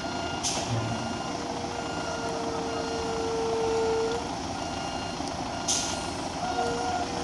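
A heavy vehicle's reversing alarm beeping repeatedly over running diesel engines. Two short sharp hisses of air, about half a second in and near six seconds, are typical of truck air brakes.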